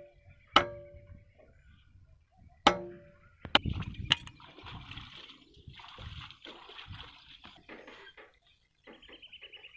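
Long-handled digging hoe chopping into wet mud, two blows in the first three seconds, each with a short metallic ring. Then a few sharp clicks and several seconds of sloshing and splashing of water and mud.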